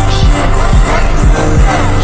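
Loud hip hop music with a heavy bass beat, an instrumental passage with no vocals.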